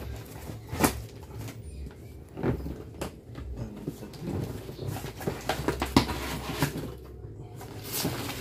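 Cardboard box being opened by hand: flaps pulled and the carton handled, giving a string of knocks, scrapes and clicks, the loudest just under a second in and around six seconds.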